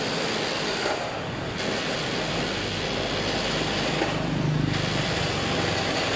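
Folding steel shop shutter being pushed along its track, its metal panels rattling and rolling in a steady rumble that swells about four seconds in.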